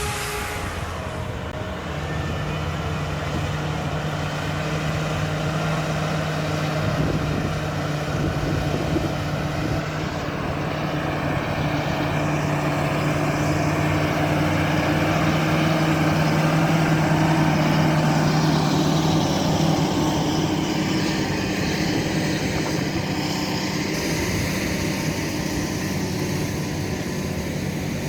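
Large farm tractor engine running steadily while ploughing, a steady drone that swells and then fades as the tractor passes.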